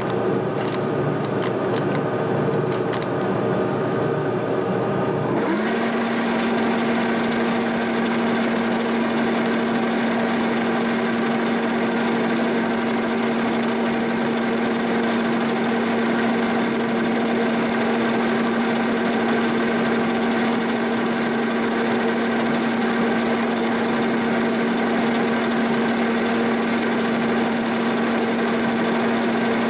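Milling machine boring a bore in a steel backhoe boom part, the boring bar turning steadily through the cut. About five seconds in the sound changes and a strong, steady ringing tone sets in and holds: typical of the boring bar chatter this part suffered from.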